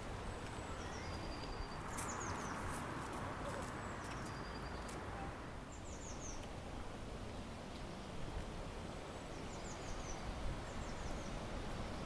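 Small songbirds chirping in short runs of three or four quick, high, falling notes, repeated several times over a steady background hiss of outdoor noise.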